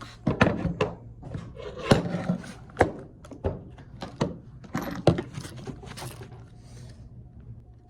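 Hard clicks, clinks and knocks of small metal parts and hand tools being handled during a scooter armrest repair, about a dozen sharp strikes that thin out near the end, over a low steady hum.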